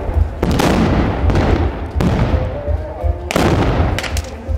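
Black-powder muskets fired one after another: three loud blasts roughly a second and a half apart, each with a rumbling tail.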